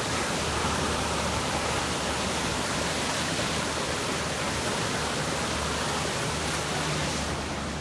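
Flash-flood debris flow on a mountain creek: black, debris-laden floodwater rushing past in a steady heavy rush, easing a little in the upper range near the end.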